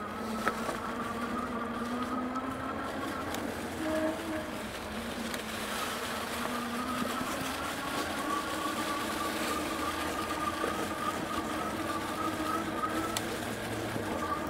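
Velotric Nomad 1 fat-tire e-bike's hub motor whining under throttle, its pitch edging upward as the bike gains speed, over the steady rolling noise of fat tires on a leaf-covered dirt trail.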